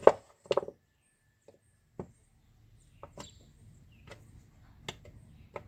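Hammer striking to drive a worn rivet pin out of a motorcycle clutch basket: a sharp blow at the start, a quick pair about half a second in, then lighter strikes about once a second.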